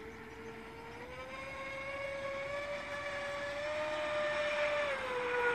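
Electric motor of a 6S-powered RC speedboat running at speed, a high steady whine. Its pitch rises about a second in, holds, then drops near the end, and it grows louder as the boat comes nearer.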